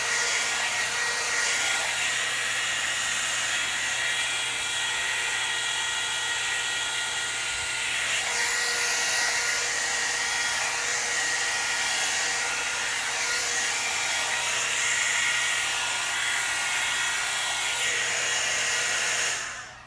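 Hot-air blow dryer brush running steadily, a hiss of blown air with a high motor whine, switched off just before the end.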